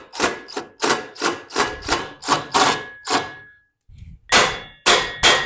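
Cordless impact driver hammering on the center bolt of a flywheel puller in short repeated bursts, about three a second, with the metal ringing. It stops briefly about three and a half seconds in, then starts hammering again.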